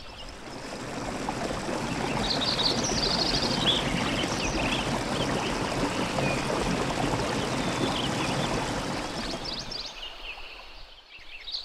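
Flowing water rushing steadily, with small birds chirping in short quick runs of high notes, fading out near the end.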